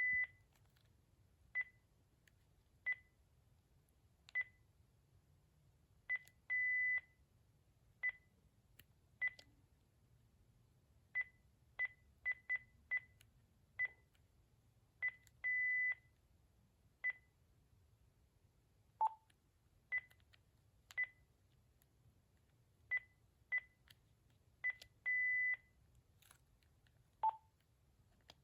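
Cordless phone handset key beeps as its settings menu is stepped through: a string of short, single-pitch beeps at irregular intervals, three of them held longer, about a second each, and twice a lower beep, once about 19 s in and once near the end.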